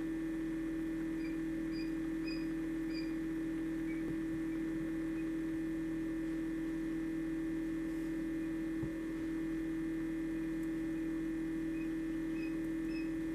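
Incubator's steady electrical hum, with faint short high peeps a few times early on and again near the end from a quail chick zipping open its pipped egg.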